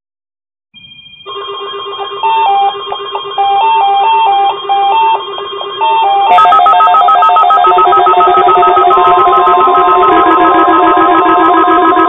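Several weather alert radios sounding their alarms together as they receive the NOAA Weather Radio tone alarm test: overlapping electronic beeping in alternating pitches over steady tones. More alarms join about six seconds in, and rising siren-like sweeps come near the end.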